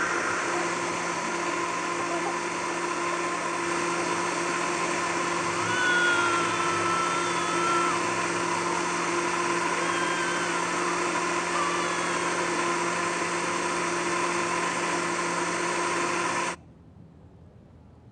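Electric countertop blender running steadily at full speed, blending a liquid, then cutting off abruptly near the end.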